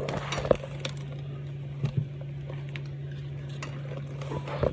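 A few light metallic clinks as a socket wrench on a long extension is fitted onto suspension bolts, over a steady low hum.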